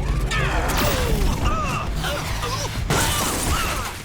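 Cartoon action sound effects: two loud whooshing blasts, one at the start and one about three seconds in, with warbling, gliding tones over a low rumble.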